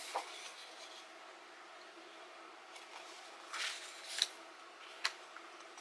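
Sheets of scrapbooking paper being handled and laid down on a wooden table: a short papery rustle about three and a half seconds in, and a few light ticks and taps.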